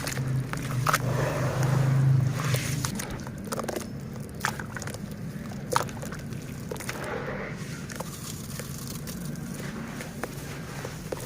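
Lumps of dry red dirt crumbling and breaking apart in water, with scattered sharp crackles and crunches. A low hum is loudest during the first two seconds or so.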